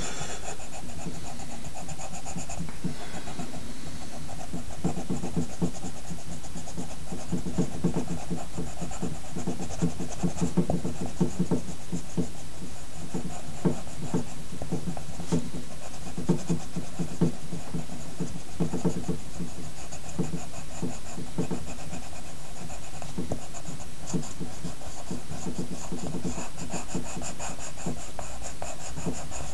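Drawing on paper: rapid, repeated back-and-forth strokes, as in shading, over a steady hiss.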